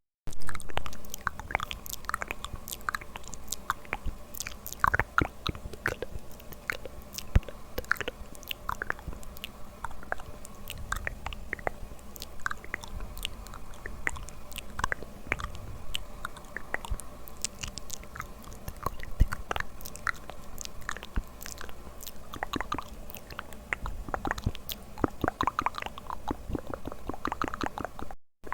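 ASMR mouth sounds: a continuous run of irregular, sharp clicks and smacks of the lips and tongue, several a second.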